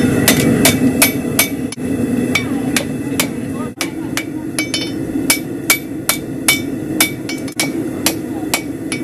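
Blacksmith's hammer striking a red-hot horseshoe over the horn of a steel anvil, a regular run of sharp ringing blows at about two to three a second, as the shoe is forged into shape.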